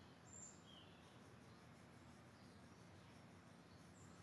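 Near silence: faint room tone, with a faint short sound about half a second in.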